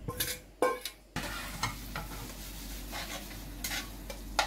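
Cooked spaghetti going into a hot frying pan: a few ringing metal clinks of the steel bowl and spatula against the pan in the first second, then steady sizzling of the oil and pasta water as the spaghetti is stirred and tossed with a spatula, with occasional scrapes on the pan.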